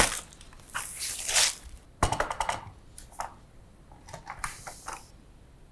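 Packing wrap rustling and crinkling as a monitor stand upright is unwrapped, then a sharp knock about two seconds in and a run of light clicks and taps as the stand's parts are handled, with a last rustle just before it goes quiet.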